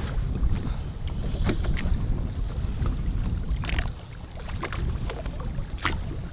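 Wind buffeting the microphone in a steady low rumble on an open boat, with choppy water slapping the boat's side in a few short splashes.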